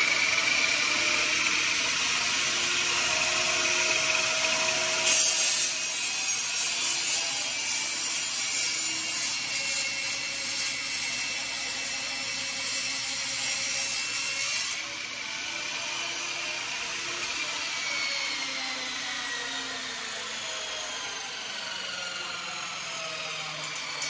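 Performix 10-inch table saw running and cutting a piece of wood, the blade rasping through it. Its pitch slowly falls over the last several seconds as the saw winds down.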